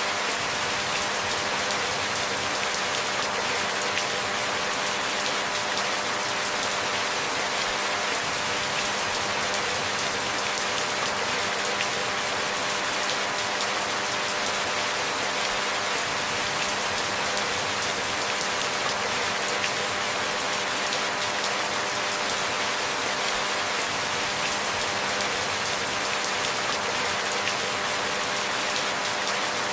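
Steady rainfall: dense, even patter of raindrops on a surface, with no breaks or changes.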